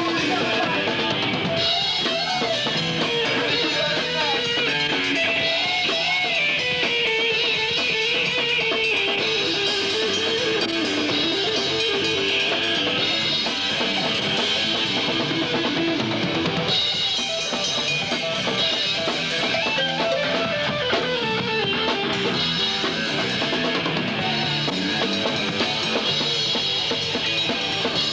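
Rock band playing, with electric guitar and a drum kit.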